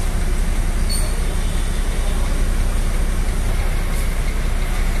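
Ashok Leyland 12M FE bus engine running steadily at idle, with a deep, even low hum, heard from inside the driver's cab.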